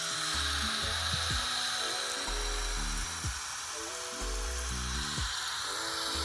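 Steady hiss of a garden hose spraying water onto river rock, under background music with a bass beat.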